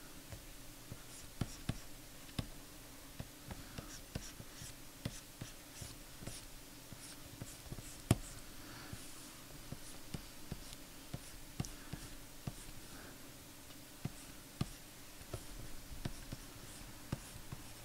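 Pen stylus tapping and scratching on a graphics tablet in quick sketching strokes. It is faint, with irregular sharp ticks, the strongest one about eight seconds in.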